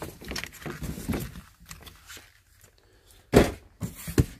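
Soft handling noises, then a loud thump about three and a half seconds in and a sharper knock just before the end.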